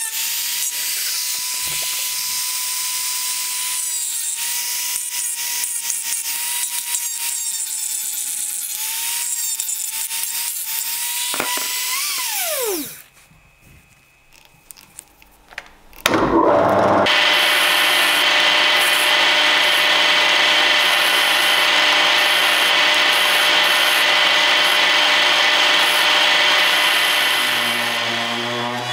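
Rotary tool with an abrasive stone grinding a steel compass part: a steady motor whine with rubbing. About 12 s in the tool is switched off and the whine falls away. After a few quiet seconds with light handling clicks, a louder power tool, a polishing wheel, starts about 16 s in and runs steadily.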